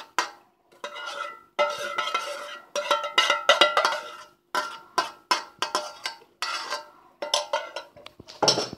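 Metal spoon scraping and knocking against an enamel bowl as thick sour cream is spooned out of it, each stroke leaving the bowl ringing briefly. The strokes come irregularly, a dozen or so, some in quick runs of scraping.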